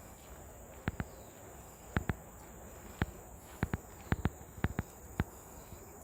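Footsteps of a person walking, a dozen or so sharp irregular clicks, some in quick pairs, over a steady high-pitched insect drone.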